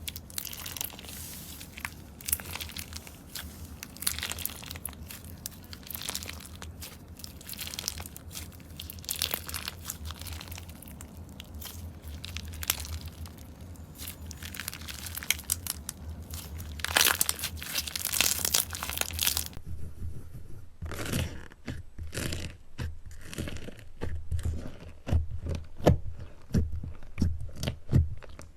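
Slime being squeezed and pulled by hand, giving a dense run of crunchy, crackling and tearing sounds. About two-thirds through the sound changes to a series of separate crunchy squishes, each with a soft low thud.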